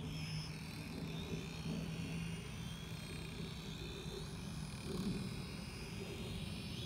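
Small Petrel FPV quadcopter's propellers whining in flight, the pitch of the motors rising and falling as it is steered low over the grass.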